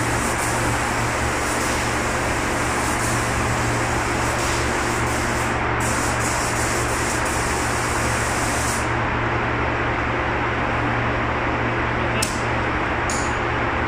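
Gravity-feed spray gun hissing as it sprays primer, over the steady drone of the paint booth's ventilation fans; the hiss breaks off briefly about six seconds in and stops about nine seconds in. Two short clicks near the end.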